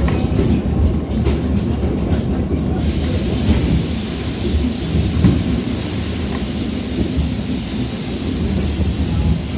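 Rumble and clatter of a narrow-gauge passenger carriage running along the track, heard from inside. A steady hiss joins about three seconds in.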